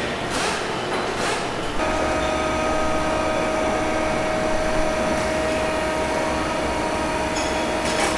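Factory-floor machinery on an axle assembly line. At first there is a rhythmic hissing, about two or three pulses a second. From about two seconds in, a steady machine whine sits over a low hum.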